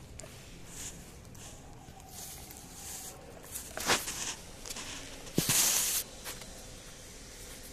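A dog crunching dry Pedigree kibble, a few irregular crunches and clicks, the loudest about four seconds in and a longer crunch just after five seconds.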